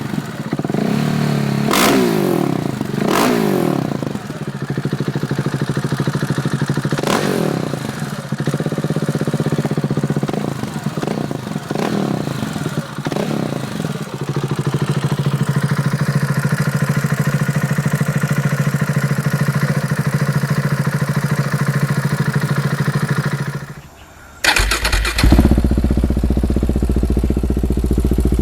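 KTM 690 Duke's single-cylinder engine through an aftermarket exhaust, blipped hard several times in the first few seconds and again a few more times, then settling into a steady idle. About 24 seconds in the sound drops out briefly and returns as a louder, deeper idle.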